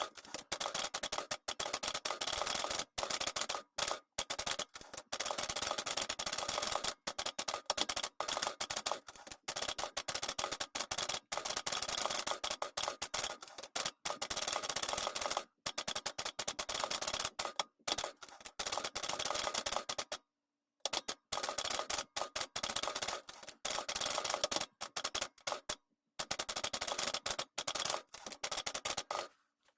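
A 1968 Olympia SF De Luxe manual typewriter being typed on at speed: a dense run of sharp key and typebar clacks, broken by short pauses. A faint high ping recurs every four or five seconds.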